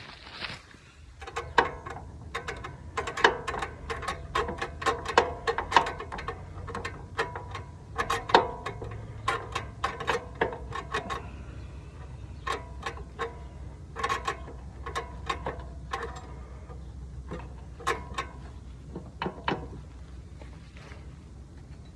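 Ratchet wrench clicking in uneven runs as the nut on a mower's belt-tension spring bolt is tightened down. The clicks thin out in the last few seconds.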